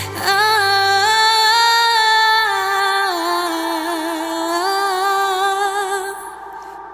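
A woman singing a slow worship song in long held notes, the melody stepping down about halfway and back up, then fading near the end. A low steady accompanying note dies away in the first few seconds.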